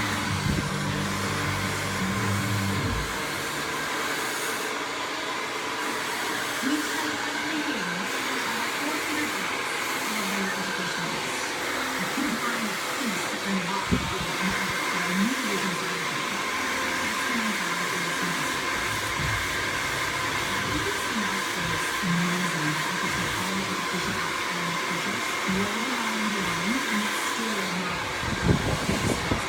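Hair dryer running steadily, with a faint voice over it.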